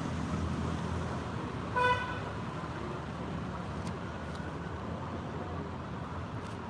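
One short horn toot about two seconds in, over a steady background hum of traffic.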